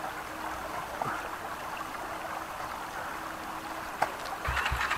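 Creek water running steadily. About half a second before the end, an enduro motorcycle engine starts up and runs with rapid, uneven firing pulses, getting louder.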